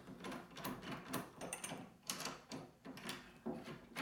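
A newly installed door knob and lockset being tested: the knob turning and the latch and lock mechanism clicking and rattling, several irregular clicks a second.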